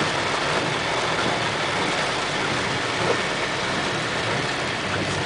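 Steady vehicle engine and road noise while driving on a wet, slippery dirt road after rain.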